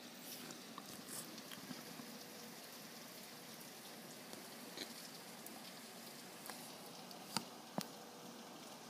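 Rain falling steadily, faint, with scattered drops ticking and two sharp taps near the end.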